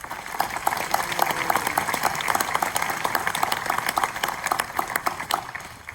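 Audience applauding, many hands clapping together; it swells quickly at the start and dies away near the end.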